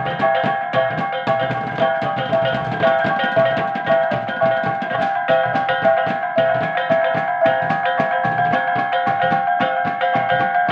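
Go laba gong-and-drum ensemble playing: several hand-held bossed gongs struck in an interlocking pattern, their ringing tones sustained over the beats of a large barrel drum played with sticks. The strokes run in a quick, even rhythm of several per second.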